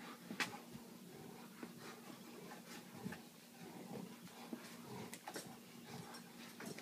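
Faint sounds of two Saint Bernards moving about and sniffing, with scattered light clicks and taps and one sharper click about half a second in.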